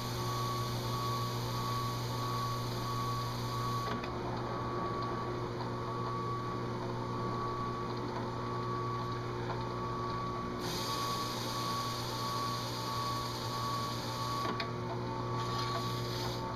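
Delta Shopmaster drill press motor running with a steady hum while a round abrasive tool in its chuck is pressed onto a metal dash insert to put an engine-turned swirl finish on it. A brighter grinding hiss comes in for a few seconds at a time, twice, as the abrasive bears on the metal.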